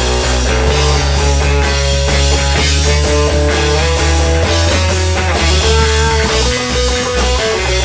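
Rock band playing live: an instrumental passage with a guitar melody over steady bass notes.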